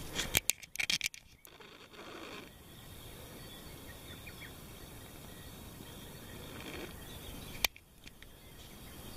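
Steady outdoor background with a quick run of sharp clicks and knocks in the first second and a half, and one more sharp click about three-quarters of the way through.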